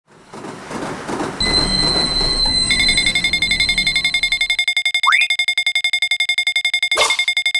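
Cartoon railroad-crossing warning alarm sounding as a rapid, even beeping pulse of several high tones at once, starting after a rumbling noise that fades out over the first few seconds. A single rising whistle-like sweep comes in about five seconds in, and a sharp knock about seven seconds in.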